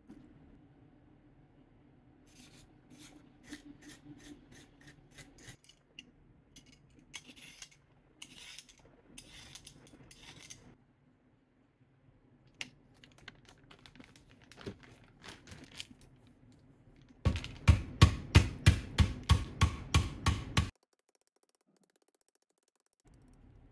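New ginger in a plastic bag being pounded with a wooden rolling pin on a wooden cutting board: about a dozen sharp whacks at roughly four a second, the loudest sound here, coming after a stretch of crinkling and scraping handling noise.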